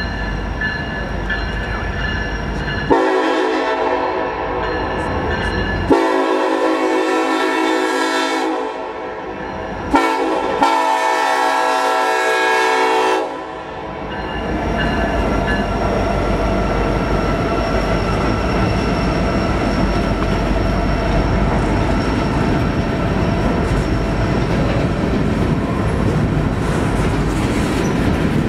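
Diesel freight locomotive's horn sounds the grade-crossing signal as the train approaches: two long blasts, a short one and a final long one. The locomotives and coal hopper cars then pass close by with a steady rumble and the clatter of wheels on the rails.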